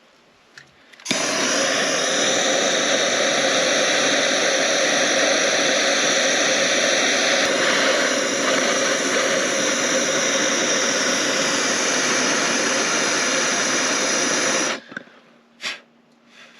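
Electric heat gun blowing steadily, switched on about a second in and off again near the end, shrinking heat-shrink tubing over a freshly soldered wire joint.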